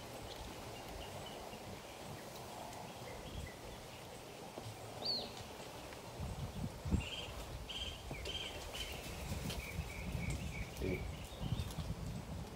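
Faint outdoor garden ambience with small birds chirping high and thin: a single chirp about five seconds in, then a run of short chirps from about seven to eleven seconds, over a low rumble.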